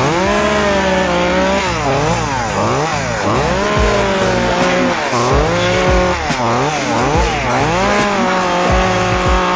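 Two-stroke chainsaw running at high revs, its pitch dipping and climbing back again and again throughout.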